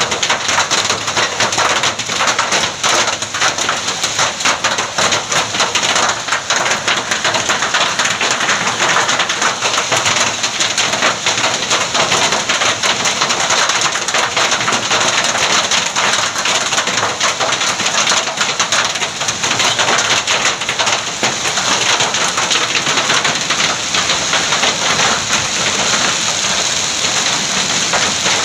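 Heavy hail pelting a paved road: a dense, steady clatter of countless small impacts with no letup.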